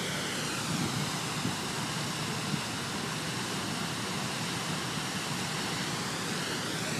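Steady rushing splash of a large fountain's water jets falling into its basins.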